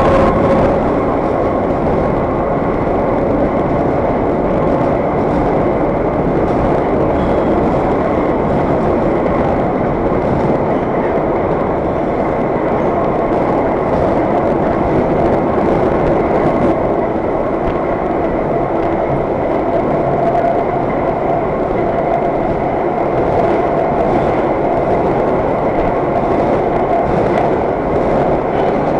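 Vintage IRT Low-V subway car running steadily, heard from inside the car: a loud, continuous rumble of the train in motion with a faint steady hum over it.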